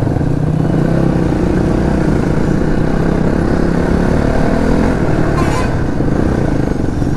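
Crossfire 450 dirt bike's engine running steadily under way, a dense low drone without revving, heard from the rider's seat.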